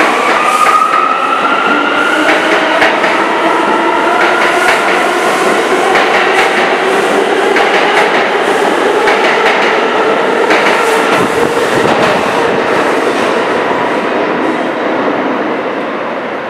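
R179 subway train accelerating out of a station: the propulsion whine rises in pitch as it speeds up, with the wheels clicking over rail joints as the cars pass. The sound fades near the end as the last car leaves.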